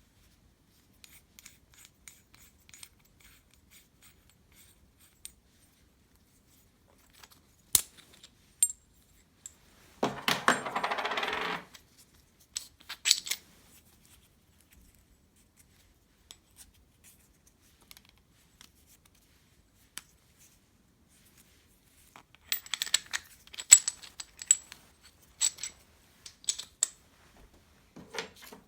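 Scattered sharp metallic clinks and clicks of small metal parts being handled and set down, with a brief scraping noise about ten seconds in and a busier run of clinks near the end.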